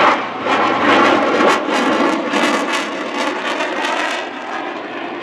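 An F-22 Raptor's twin turbofan engines heard in flight as it pulls away, a loud, broad jet noise that slowly fades over the last seconds.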